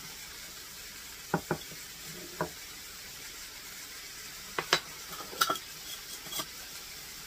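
Diced chicken sizzling faintly in a skillet over a gas burner. Scattered light clicks and taps from a measuring spoon and a glass spice jar come as a pair early on, then as a cluster a few seconds later.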